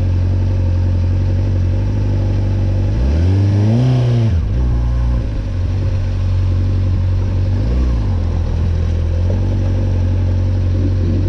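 Honda sport motorcycle's engine idling steadily, revved once about three seconds in, the pitch rising and dropping back to idle, with a shorter, lighter throttle blip about eight seconds in.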